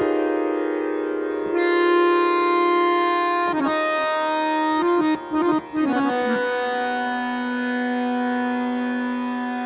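Harmonium playing raag Charukeshi: long held reed notes, then a quick run of notes with two short breaks about five seconds in, settling on one long low note.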